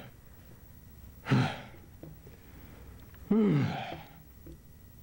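A man groaning twice with effort, short vocal strains, the second groan falling in pitch as it trails off.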